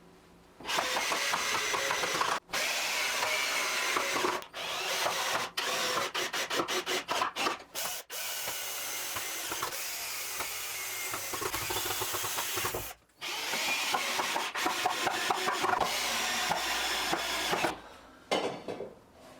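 A power tool working wood in several runs of a few seconds each, with a string of short quick bursts partway through.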